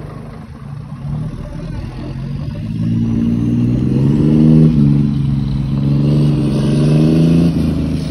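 Scania truck's diesel engine and exhaust accelerating as it pulls away, the note growing louder over the first few seconds, with a brief dip about halfway through at a gear change.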